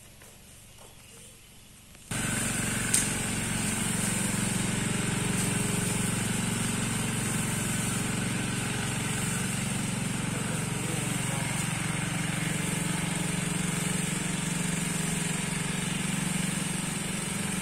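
Truck engine running steadily with a low hum. It comes in suddenly about two seconds in, with a steady high hiss over it.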